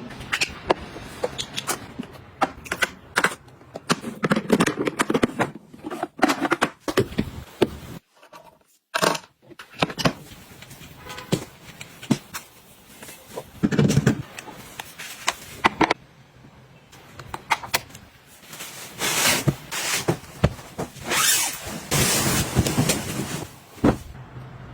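Objects being handled and set down: quick clicks, taps and knocks with rustling and scraping between them. The sound drops out briefly a couple of times.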